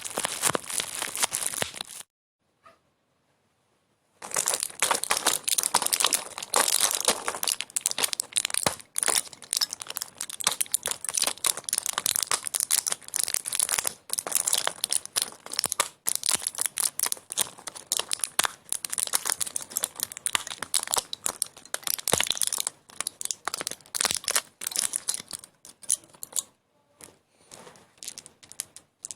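Close-up crinkling and crackling in dense rapid clicks, like material being crumpled or torn, stopping for about two seconds near the start and thinning out near the end.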